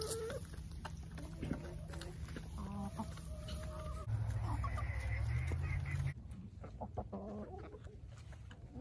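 Hens clucking in short, scattered calls while feeding. A low rumble underlies the calls and is loudest between about four and six seconds in.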